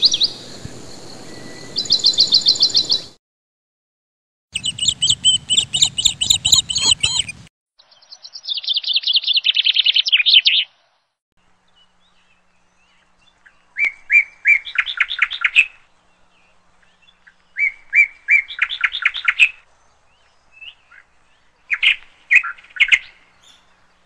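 Birds chirping in short bursts of rapid trilled notes, several separate snippets with silent gaps between them.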